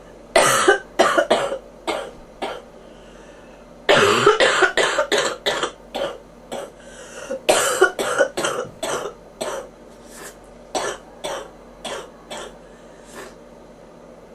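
A person with bronchitis coughing in three fits of short, rapid coughs with brief pauses between them; the last fit trails off into weaker coughs.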